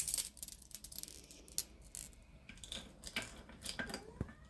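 Small hard stones and crystal beads clicking and clinking as they are handled on a quartz plate: a cluster of clatters just after the start, scattered clicks after it, more around three seconds in, and a short ring near the end.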